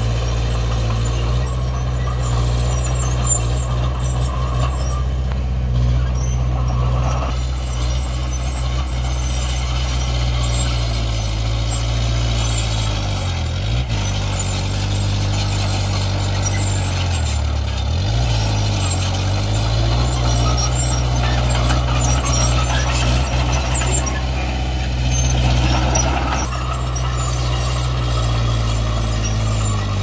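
Komatsu D20P bulldozer's diesel engine running steadily under work, its note sagging briefly twice as it takes load, with a noisy clatter above it.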